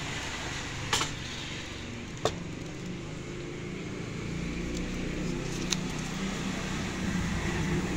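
A few sharp clicks and knocks as a demolition hammer is handled in its foam-lined case, over a steady background rumble.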